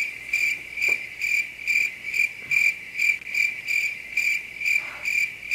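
Cricket chirping, a steady, even chirp a little over twice a second. It starts and stops exactly with the pause in talk, like a comic 'crickets' sound effect laid over an awkward silence.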